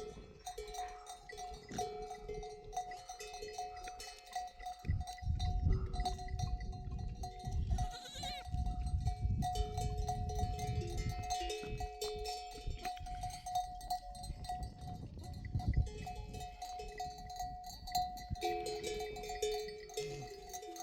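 Bells on a herd of goats and sheep ringing and clanking without a break as the animals move.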